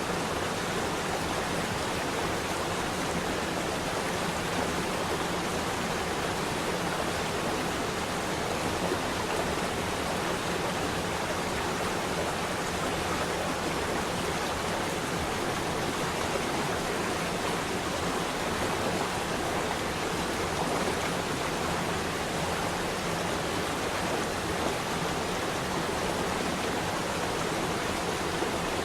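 Flowing water rushing steadily, an even, unbroken hiss with no distinct splashes or changes.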